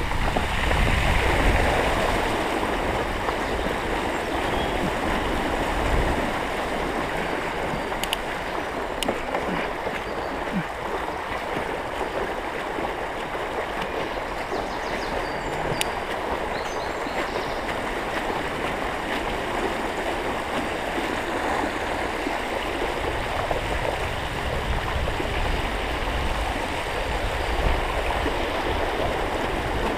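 Steady splashing and swishing of shallow floodwater being churned as it is moved through, with occasional low rumbles.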